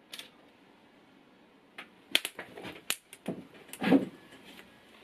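Sharp clicks and crackles as an alligator clip snaps onto the positive terminal of a 12 V motorcycle battery, dead-shorting it through a thin insulated wire that quickly overheats and starts to smoke. The crackles come in a quick irregular run, the loudest about four seconds in.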